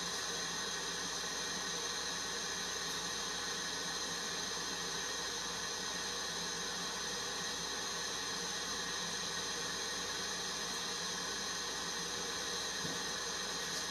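Propane-oxygen lampworking torch burning with a steady hiss.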